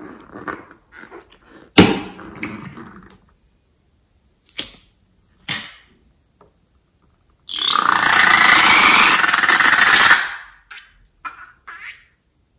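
Liquid-filled rubber balloon being squeezed out into a bowl of slime: rubbery handling sounds with a sharp snap near the start, a couple of light clicks, then a loud spluttering gush of about three seconds as the contents are forced out through the balloon's neck, followed by soft rubbery clicks as the empty balloon is handled.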